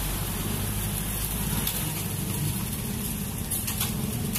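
Concrete mixer truck's diesel engine running steadily at low revs, with an even rushing noise over it and a few faint clicks.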